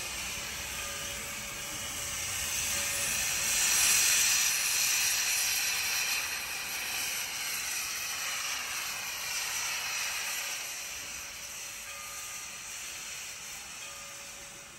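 Virginia & Truckee No. 25 steam locomotive venting steam low at the front near its cylinders, a steady hiss that swells about four seconds in and then gradually fades.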